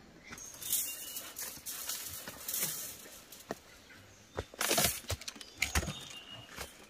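Footsteps on a dirt garden path and the rustle of brushing past tomato plants, then a run of sharp knocks and taps in the second half as woven baskets are handled and set down.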